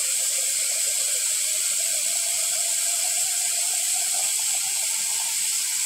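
Kitchen faucet running steadily into a plastic jar held under the stream in a stainless steel sink, filling the jar with water.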